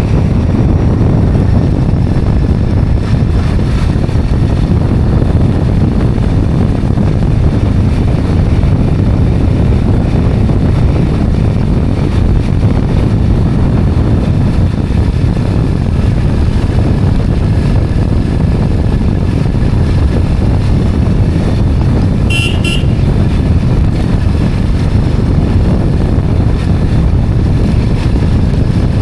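Steady, loud wind rumble on the microphone from a moving motorcycle. A short horn beep sounds about three quarters of the way through.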